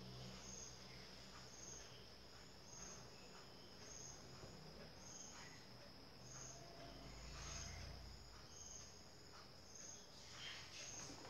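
Faint high insect chirping, like a cricket, pulsing about one and a half times a second over quiet room tone.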